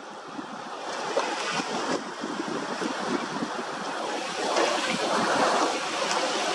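Wind rushing over the microphone with choppy sea water washing, a steady noise that swells about five seconds in.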